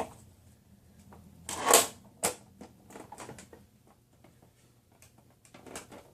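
Hard plastic vacuum cleaner attachments being handled. A loud scrape about a second and a half in, a sharp click just after, then light clicks and rustles.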